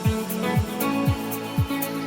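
Background music with a steady beat: a deep kick drum about twice a second under held chords and light high ticks.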